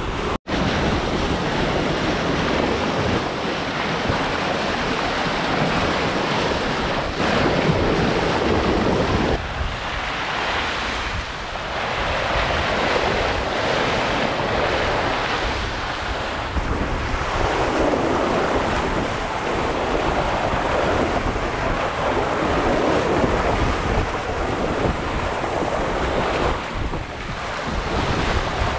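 Water rushing and splashing along the hull of a sailing yacht making about 8 to 9 knots on a bouncy beam reach, with wind buffeting the microphone. The wash swells and eases every few seconds as the boat rides the waves.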